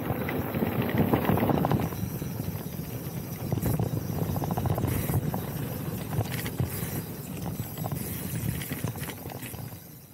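Specialized Turbo Levo e-mountain bike rolling fast down a dirt trail: tyre noise on the dirt with a constant chatter of knocks and rattles from the bike over the bumps, fading out near the end.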